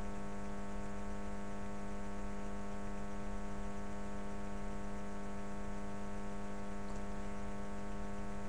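A steady hum with many overtones, strongest low in pitch, over a faint hiss, holding unchanged throughout.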